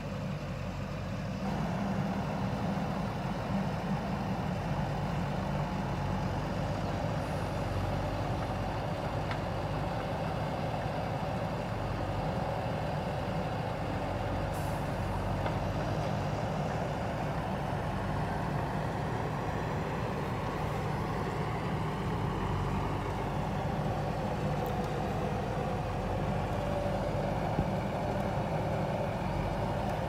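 JCB backhoe loader's diesel engine running steadily while the machine moves soil with its front loader, picking up slightly about two seconds in.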